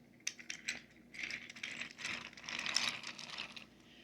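Toy train pieces being handled and moved about: a few sharp clicks, then a longer spell of rattling and rustling with many small knocks, fading out near the end.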